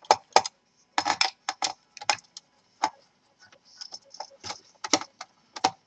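Small screwdriver clicking and tapping against metal while undoing the screws that hold a laptop's heatsink cooler to the motherboard: about a dozen short, sharp clicks at irregular spacing.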